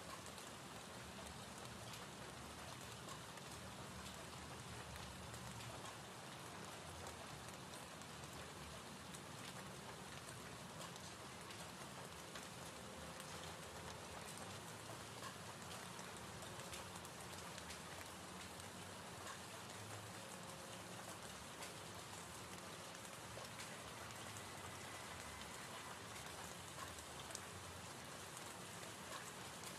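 Faint, steady sound of gentle rain falling, a recorded rain ambience played as background, with scattered small drop ticks.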